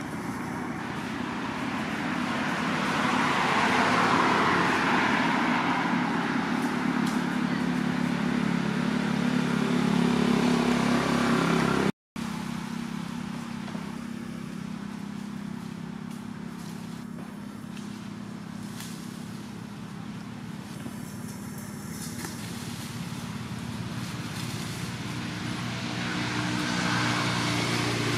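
A motor vehicle's engine running steadily, swelling louder over several seconds. The sound cuts out for an instant about twelve seconds in, then continues more softly.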